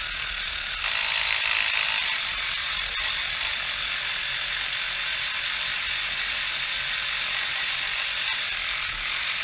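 Dspiae battery-powered reciprocating sander running, its large foot pad sanding inside a plastic model kit part with a steady high whirring buzz. It gets louder about a second in and holds steady after that.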